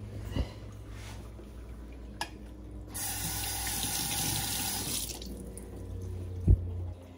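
Kitchen tap water running into a stainless steel sink for about two seconds, starting and stopping abruptly. There is a thump near the start and a louder one near the end.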